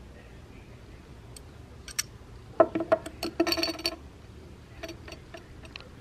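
Metal belt buckle (1978 Pacifica Mfg) clinking and rattling as it is handled and set down on a wooden tabletop. A few single clicks, then a quick cluster of ringing metallic clinks in the middle, then lighter taps near the end.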